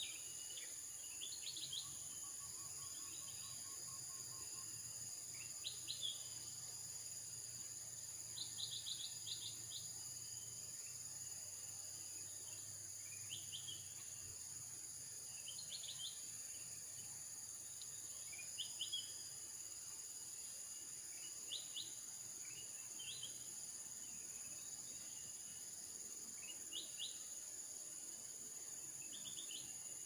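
Steady high-pitched insect drone, with a small bird's short chirping calls, clusters of two to four quick notes, repeated every few seconds.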